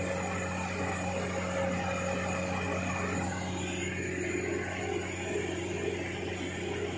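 Mitsubishi truck's diesel engine running steadily at idle, a constant low hum.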